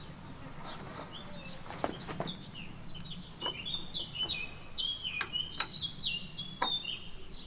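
A songbird singing in repeated short phrases of stepped, chirping notes. A few sharp clicks come from a wrench as the exhaust mounting nut is tightened.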